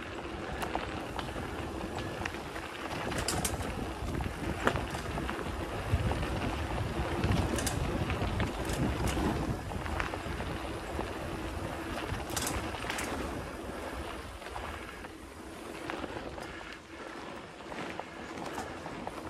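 Specialized Stumpjumper mountain bike riding a dirt singletrack: tyre rumble and wind on the microphone, heavier for a few seconds around the middle, with scattered sharp clicks and rattles from the bike.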